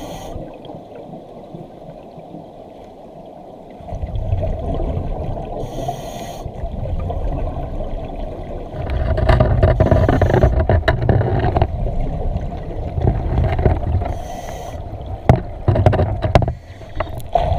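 Underwater sound of a scuba diver breathing on a vintage double-hose regulator, with a short hiss of breath and bubbles about every four to six seconds. Under it runs a low churning rumble of moving water that swells and fades.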